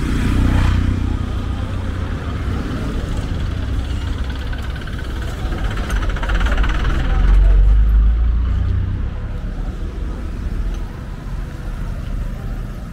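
Road traffic passing on a town street: motor vehicles go by with a low rumble, one swelling up and passing loudest about seven to eight seconds in, then fading.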